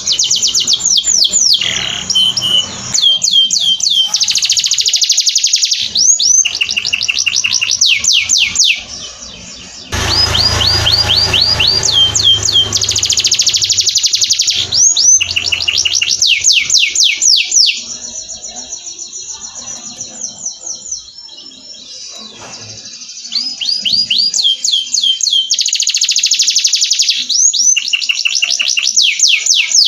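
Domestic canary singing a long, continuous song of rapid trills, each made of fast repeated sweeping notes, switching to a new phrase every second or two, with a softer passage a little past the middle.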